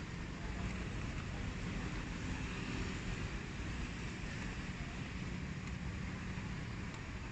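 Steady low rumbling background noise with a faint hiss, unchanging throughout.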